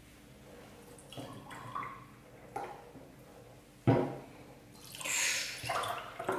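Milk mixed with yogurt being poured from a plastic jug into small glass jars: dripping, with light clinks against the glass and a sharper knock about four seconds in. A louder pour near the end spills over onto the table.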